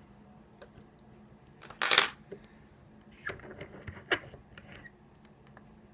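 A short metallic clatter about two seconds in, then lighter clicks and rattles: a picked pin-tumbler lock and the picking tools being handled as the lock is readied for disassembly.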